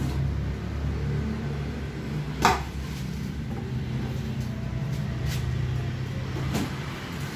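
Scissors cutting into a cardboard box and its packing tape: a few sharp snips and clicks, the loudest about two and a half seconds in, over a steady low hum.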